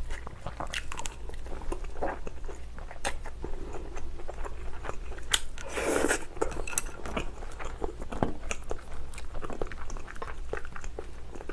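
Close-miked chewing of a mouthful of pork kimchi stew: irregular wet mouth clicks and smacks, with a louder cluster about halfway through.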